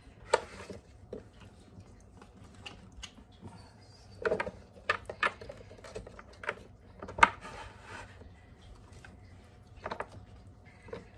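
Celery sticks being packed by hand into a clear plastic storage container: irregular light knocks and clicks of the stalks against the plastic, the loudest about seven seconds in.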